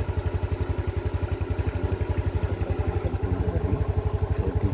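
Vehicle engine idling with a steady, even putter of about a dozen beats a second.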